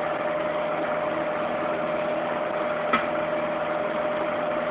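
Small Element electric fan heater running: a steady whir with a constant hum, and one faint tick about three seconds in.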